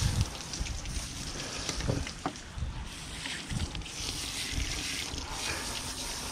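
Wind buffeting the microphone, with a few light knocks and clicks from handling the fish.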